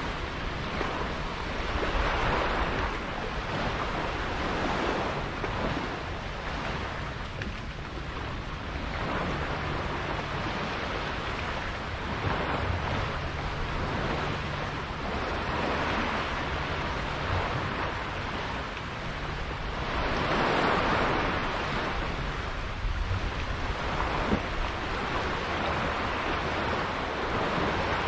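Sea water rushing and splashing around a sailboat under way, with wind buffeting the microphone. The wash swells and fades every few seconds.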